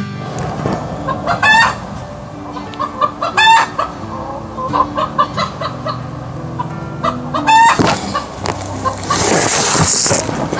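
Rooster clucking over and over, with three loud hen-like calls, agitated at being moved out of the hens' coop. A rush of noise near the end.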